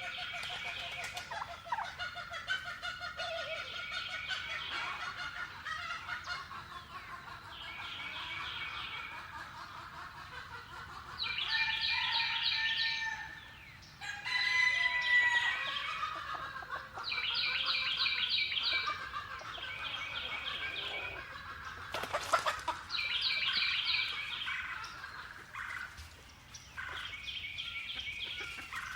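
Ambience of poultry calling: about eight short rapid rattling calls, each lasting a second or so, with clucking and other bird calls between them.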